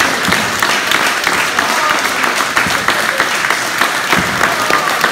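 A crowd applauding continuously: many hands clapping at once, with some voices and calls mixed in.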